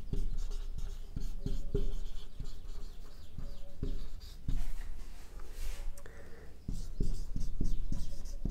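Marker pen writing on a whiteboard: a run of short, irregular strokes, with a brief pause a little past halfway.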